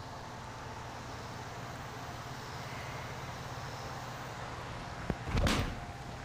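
A golf iron swung through the ball off artificial turf: a sharp click, then a short loud whoosh about five seconds in, over a steady low background rumble.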